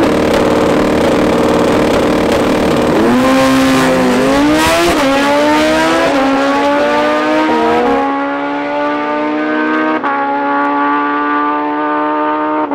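Drag-racing motorcycle engines held at high revs on the line, then launching about three seconds in. The pitch climbs and drops back several times in quick upshifts. After about eight seconds the sound goes duller and a steadier engine note carries on.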